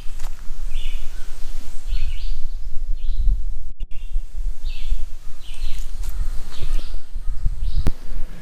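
Wind buffeting the microphone with a steady low rumble, while a bird calls repeatedly in short chirps, about one a second.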